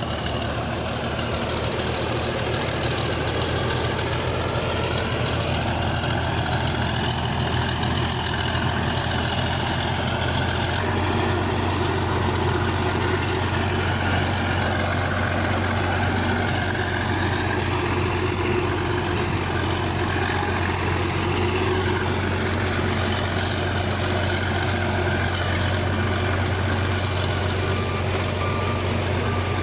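Bulldozer diesel engine running steadily with a strong low hum. Near the end a reversing alarm beeps faintly in short even pulses.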